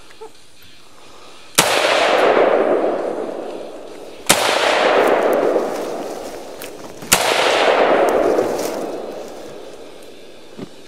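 Three single rifle shots about two and a half seconds apart, each followed by a long echo that fades over about two seconds.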